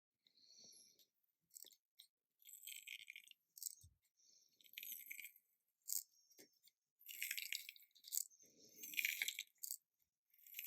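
Wacaco Minipresso NS2 hand-pumped espresso maker being pumped to brew a shot: irregular short hissing bursts and clicks from its manual piston pump pushing water through the capsule.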